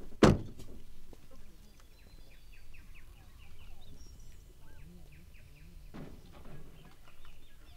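A pickup truck's door shuts with a single loud slam about a third of a second in. Then a bird chirps a quick run of short, high notes for a couple of seconds.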